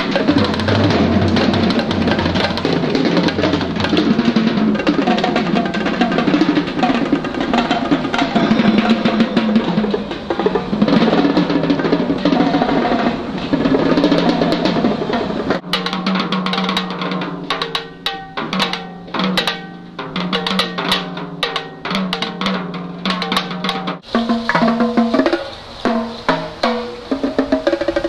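Percussion ensemble playing snare drum and tom-toms with sticks in a dense stream of rolls and beats. A little past halfway it thins to separate sharp strikes over a low held tone, and about four seconds before the end it shifts suddenly to a different pattern of pitched strokes.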